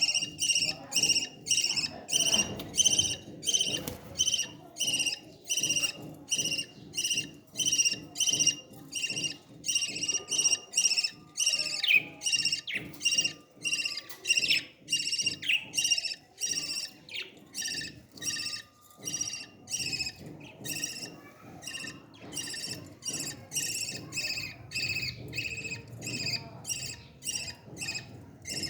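Parrot chicks' food-begging calls: short, high-pitched calls repeated steadily about twice a second while they are being fed.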